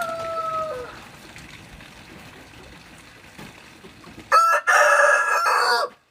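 Rooster crowing twice. The first crow trails off about a second in, and a second, much louder crow close by starts about four seconds in and cuts off suddenly after about a second and a half.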